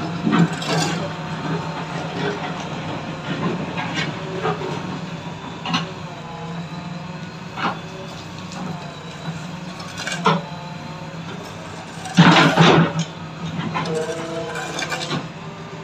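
JCB 3DX backhoe loader's diesel engine running steadily while the backhoe digs, with scattered sharp knocks from the bucket working the soil; the loudest is a burst of knocks about twelve seconds in.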